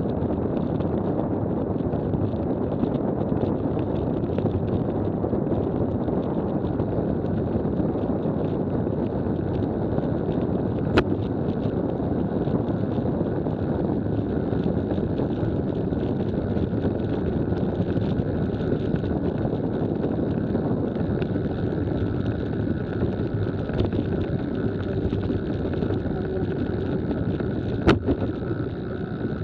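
Steady rolling rumble and hiss of a WAW velomobile under way on a concrete trail deck. Two sharp clicks stand out, one about eleven seconds in and one near the end.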